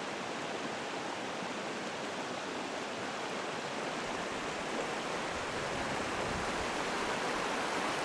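Steady rush of a shallow river running over stones, growing slightly louder toward the end.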